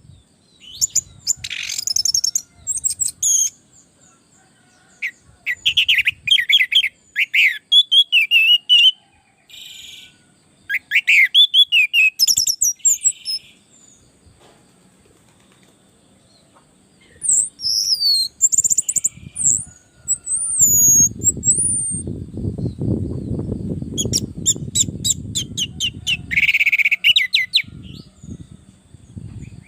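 Orange-headed thrush singing in bursts of rapid, rattling trills and gliding whistled phrases, with short pauses between bursts. A low rumbling noise sits under the song for several seconds past the middle.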